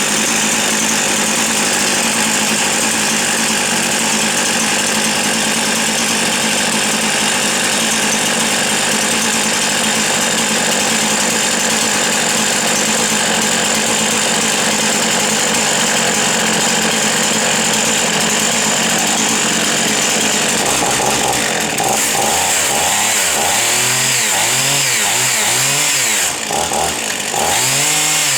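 Husqvarna 55 Rancher two-stroke chainsaw running steadily at high speed. In the last several seconds it is revved up and down repeatedly.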